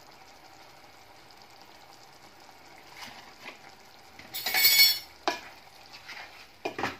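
Masala cooking in a nonstick pot with a faint, steady sizzle, then a spatula stirring and scraping it around the pot from about four seconds in: one loud scrape, a sharp knock, and another scraping stroke near the end.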